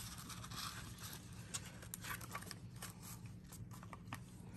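Faint clicks and light rustling from a plastic DVD case and its paper inserts being handled, over a steady low hum.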